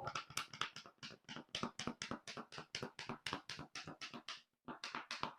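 Spice shaker of cayenne pepper being shaken over raw chicken drumsticks: quick, light, even taps, about six a second, with a short break near the end.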